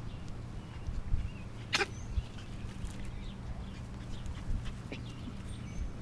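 Cairn terrier puppies at play: scuffling thumps and faint high squeaks, with one sharp short sound about two seconds in, over a low steady hum.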